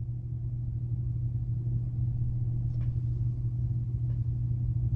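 Steady low hum, with two faint light clicks about three and four seconds in.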